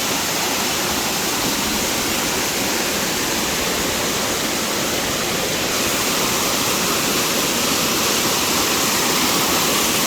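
Waterfall rushing: a loud, steady roar of falling and flowing water.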